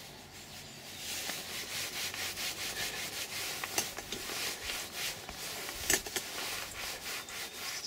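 A dry cloth rubbing over the leather of a Rolls-Royce Silver Spirit II seat, working in leather protection cream: a hissing swish of uneven strokes, with a sharp knock about six seconds in.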